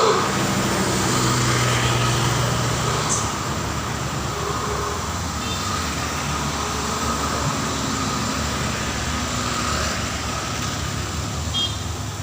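Road traffic, with a heavy vehicle's engine running past: loudest in the first few seconds, then a steadier traffic hum that fades near the end.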